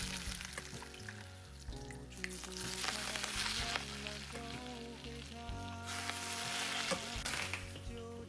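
Food sizzling in hot oil, the sizzle swelling up three times, over background music.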